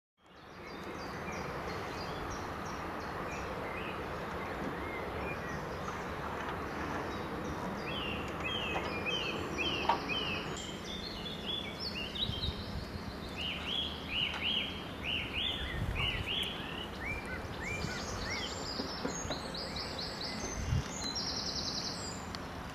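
Outdoor ambience with a steady background hiss and songbirds singing series of short repeated chirps. A sharp click about a third of the way in and a knock near the end.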